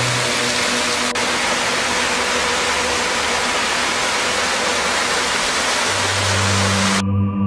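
Small mountain waterfall pouring over rocks into a pool: a steady rushing splash. Near the end low organ music comes in, and the water sound cuts off suddenly.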